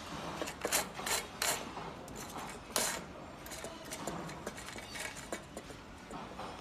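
Sections of a black metal coat-rack pole being screwed together by hand: rubbing and scraping of the parts, with several sharp clicks and knocks, the loudest about three seconds in.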